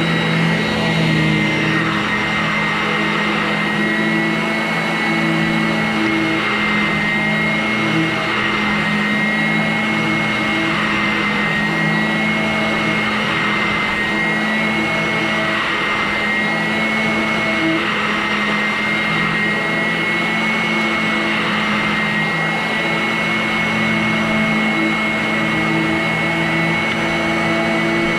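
Vacuum cleaner running steadily: a constant motor whine over the rush of air, with no change in speed.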